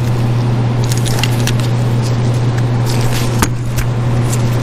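Small metal clicks and scrapes of a piston ring being worked around into its groove on a small-engine piston by gloved hands. A steady low hum runs underneath and is the loudest thing throughout.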